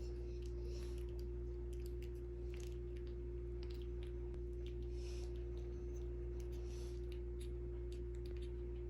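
Faint, soft wet clicks of a newborn puppy sucking on a feeding tube as milk is pushed from a syringe, over a steady electrical hum.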